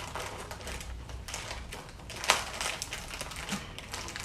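Packaging crinkling and crackling as it is handled and opened, with one sharper crack about two seconds in.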